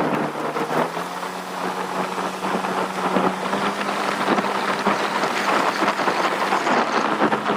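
A vehicle engine running at a steady pitch while driving, under heavy wind and road noise.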